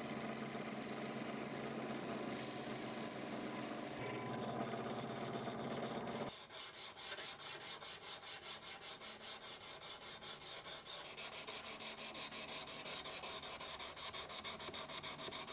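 A drill press running steadily while it drills pinholes through a high-carbon steel knife blank clamped to its handle scales. The hum shifts slightly about four seconds in and stops about six seconds in. Then sandpaper rubs the steel blade in rapid, even back-and-forth strokes as it is hand sanded.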